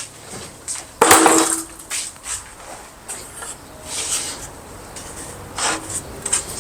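Bauer modular rolling toolbox dropped from about six feet, landing with one hard, loud crash about a second in that rings briefly. Lighter knocks and rattles follow.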